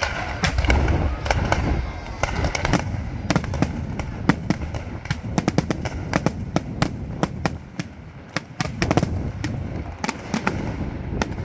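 Fireworks display going off: a rapid, uneven string of sharp bangs and crackles, with a heavy low rumble of bursting shells in the first couple of seconds.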